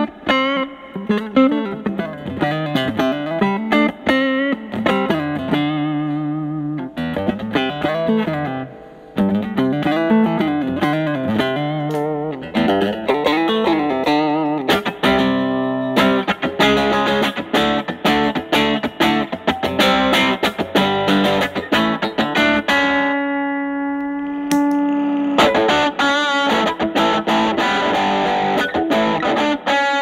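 Telecaster played through a Fender Studio Reverb combo's 8-inch Celestion speaker. The amp's gain is set high and the guitar's volume is rolled back so the overdrive cleans up. It plays runs of picked single notes and double stops, with one long held note about three-quarters of the way through.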